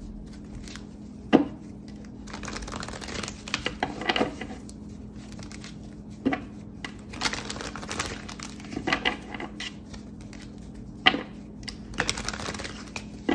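Tarot deck being shuffled and handled: irregular rustling and riffling of cards with a few sharper taps, over a steady low hum.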